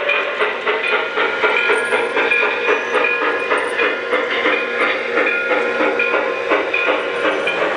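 O scale three-rail model freight train rolling past, its metal wheels clicking rapidly and irregularly over rail joints and switch work above a steady running hum.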